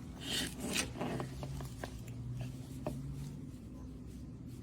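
Faint handling noises: soft rustling and a few small clicks as parts of the multitool are worked by hand, over a low steady hum.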